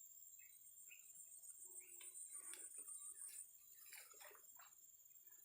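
Near silence: faint outdoor background with a steady high insect trill over the first few seconds and scattered brief, faint chirps.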